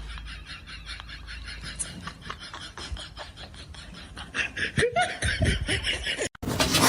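A person laughing in a fast run of short ha-ha pulses, which cuts off suddenly near the end.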